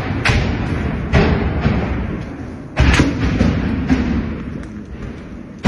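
Loud bangs echoing through a building's corridors, three heavy ones in the first three seconds and another at the very end, each trailing off in a low rumble.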